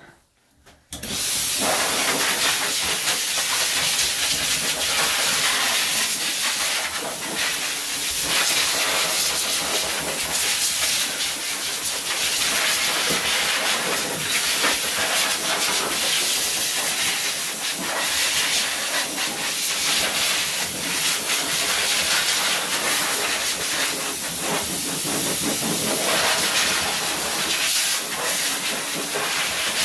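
Dog-grooming blow dryer switched on about a second in, then a loud steady rush of air through its hose.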